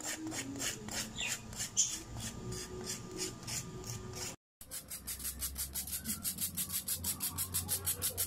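Sandpaper rubbed by hand back and forth over a layered leather cue tip in quick, even strokes, several a second, to round its flat top into a curve. There is a brief break about halfway, after which the strokes come faster.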